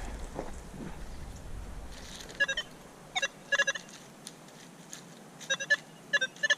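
Short electronic beeps from metal detecting gear, a pinpointer or detector sounding off in quick clusters from about two and a half seconds in as it is worked over a buried target. Before the beeps there is a low rumble of handling noise.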